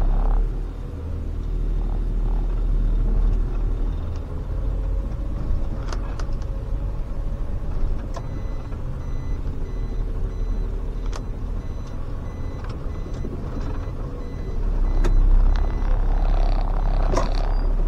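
SOR CN10.5 bus's diesel engine running with a deep rumble, with scattered clicks and rattles. A quick repeated high beep sounds for several seconds midway, and the engine grows louder about three-quarters of the way through.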